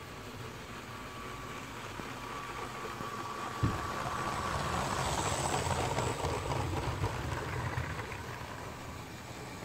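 LEGO train passing close by on plastic track: the rattle of its wheels grows louder, peaks a little past halfway, then fades, with a thin whine over it. A single sharp click comes just before the loudest part.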